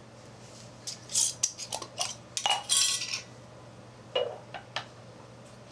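Glass mason jar and its metal lid clinking and clattering on a tile floor: a quick run of sharp clinks and rattles, some with a short metallic ring, then a couple more clinks near the end.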